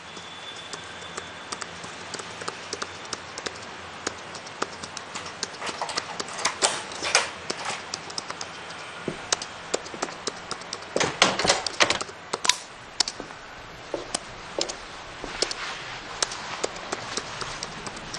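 Irregular clicks and knocks of someone moving about a room: steps and small objects being handled, densest about six to seven seconds in and again around eleven to twelve seconds in, over a faint hiss.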